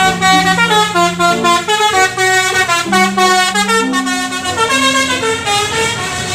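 Telolet bus horn playing a quick melody of stepped notes, several pitches sounding together.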